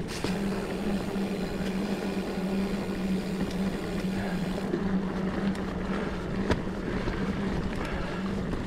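Mountain bike rolling along a rocky dirt singletrack: a steady whirring hum with wind and rolling noise, and a couple of sharp knocks as the bike rattles over rocks.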